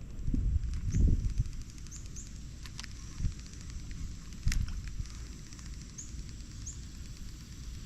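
Outdoor ambience on the water: a low, uneven rumble like wind on the microphone, with a few short, high rising chirps and a couple of sharp clicks.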